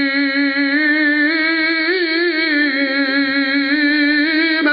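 A man's voice holding one long chanted note, wavering slightly in pitch, that breaks off near the end: a drawn-out sung cry from a zakir's mourning recitation.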